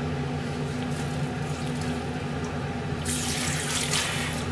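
Kitchen tap turned on about three seconds in, water running into the sink for about a second and a half before stopping, over a steady low hum.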